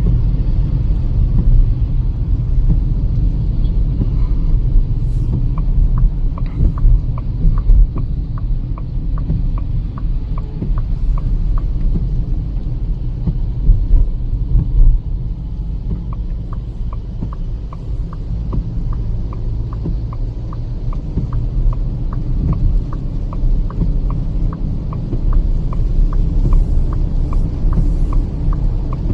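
Road and engine rumble of a Kia Seltos petrol car driving on the highway, heard from inside the cabin. A turn-signal indicator ticks steadily, about three clicks a second, starting about five seconds in, pausing briefly near the middle, then resuming.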